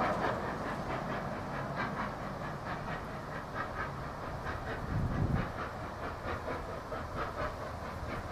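NSW 32-class steam locomotive 3265 approaching in the distance, its exhaust beating in a quick, even rhythm of chuffs. A brief low thump about five seconds in.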